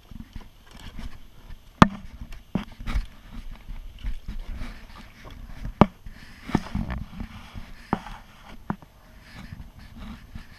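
A plastic kayak being paddled: scattered sharp knocks and scrapes against the hull, the loudest a couple of seconds in and near the middle, over a low rumble of water.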